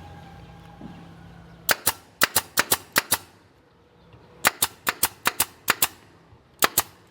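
Sharp cracking strikes in three quick bursts of six to eight, a few per second, with short pauses between the bursts.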